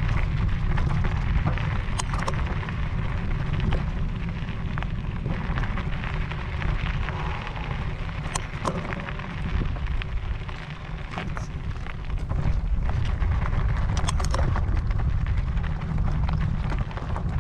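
Wind buffeting the microphone with a steady low rumble, over e-mountain bike tyres crunching along a gravel track, with scattered sharp clicks and rattles from stones and the bike.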